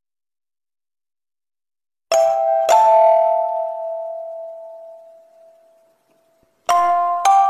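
Silence, then a two-note ding-dong chime about two seconds in, each bell-like note ringing on and slowly fading; a second two-note chime sounds near the end.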